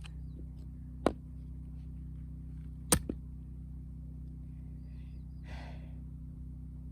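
Heavy 5 kg axe striking firewood twice, about two seconds apart; the second blow is followed by a quick smaller knock. A short rustling scrape comes a few seconds later.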